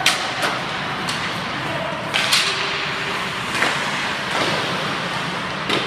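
Ice hockey practice in an indoor rink: a handful of sharp cracks of pucks striking sticks and boards, and a longer hiss of skate blades scraping the ice about two seconds in, over the rink's steady background noise.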